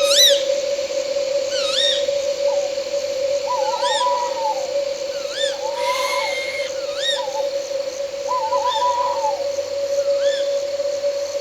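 Owls calling at night: a short arched call repeated about every second and a half, with lower wavering, trilled calls between, over a steady drone of night insects.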